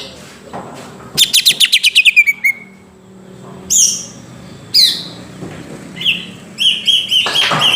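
Greater green leafbird (cucak ijo) singing: a fast, descending trill of clear notes about a second in, a couple of sharp single calls, then a rapid repeated chatter near the end.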